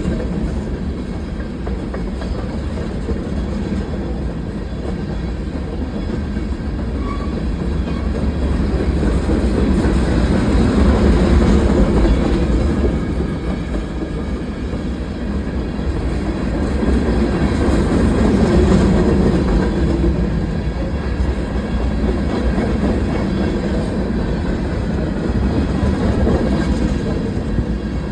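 Freight cars of a CSX mixed freight train rolling past, a continuous rumble and clatter of steel wheels on the rails that swells about ten seconds in and again near twenty seconds.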